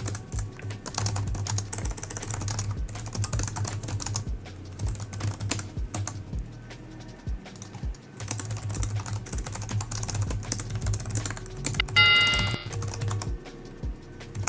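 Typing on a computer keyboard: irregular runs of key clicks, with music playing underneath. About twelve seconds in, a short ringing tone with several overtones sounds, the loudest moment.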